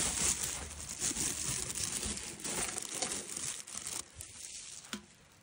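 Stars of a 200 mm brocade-crown shell with a red strobe pistil burning in the air: a dense crackling hiss that dies away about four seconds in.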